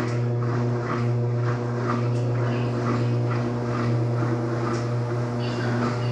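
Electrolux LTD13 top-loading washing machine agitating during its second rinse: the motor hums steadily while water and laundry swish in an even rhythm, about twice a second.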